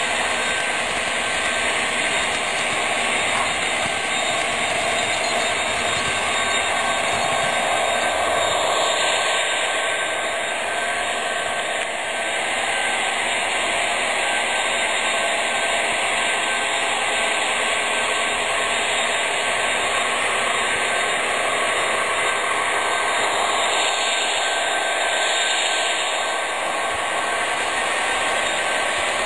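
HO scale model freight train running on its track: a steady, unbroken mechanical noise from the MTH SD70M-2 model locomotives' Proto-Sound 3.0 diesel sound system and the cars rolling on the rails, at an even level throughout.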